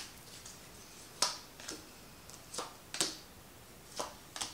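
Tarot cards being pulled from the deck and snapped down: about half a dozen short, sharp card snaps at irregular intervals.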